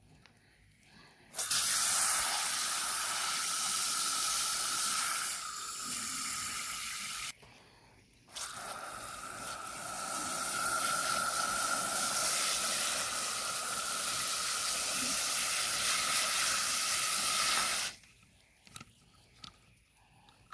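Garden hose spraying water onto dry-poured concrete mix around a fence post to soak and set it: a steady hiss with a faint whistling tone, running about six seconds, stopping briefly, then running again for about ten seconds.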